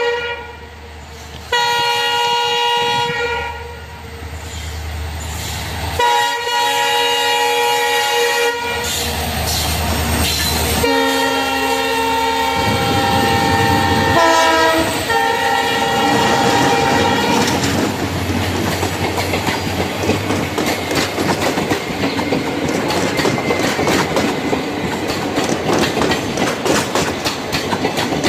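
Train horn sounding in a series of long, chord-like blasts over the first half, followed by the loud rushing noise of the train passing at speed, its wheels clattering rapidly over the rail joints.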